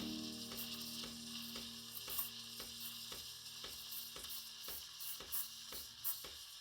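Breville BES860 espresso machine's steam wand hissing steadily as it steams milk. Background music with a regular light beat plays underneath.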